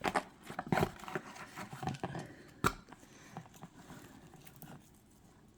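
Wrapping and small objects being handled: irregular rustling and light taps, with one sharper knock about two and a half seconds in, then fainter handling.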